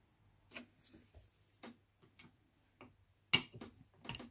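Scattered light clicks and taps of metal tools and carburettor parts being handled on a workbench, about seven in all, with one sharper, louder knock a little after three seconds.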